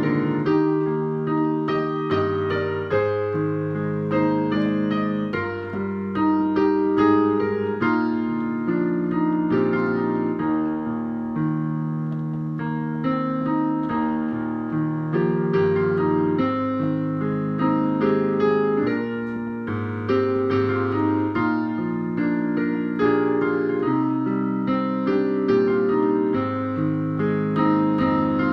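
A hymn played on a digital piano in full chords, the melody moving over held bass notes.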